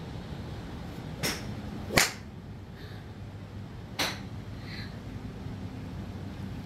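Golf clubs striking balls: three sharp cracks, at about a second, two seconds (the loudest) and four seconds in.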